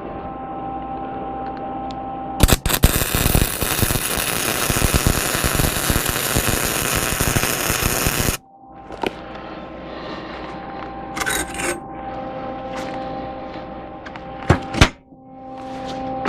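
MIG welder arc crackling steadily for about six seconds while welding a nut onto square steel tubing, starting about two seconds in and cutting off abruptly. A steady hum runs before and after the weld, and two sharp clicks come near the end.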